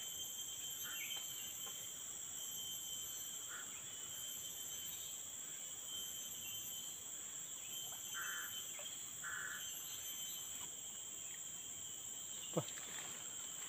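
Steady chorus of forest insects, several high-pitched shrilling tones held without a break. Two short faint calls sound in the middle, and a single sharp click comes near the end.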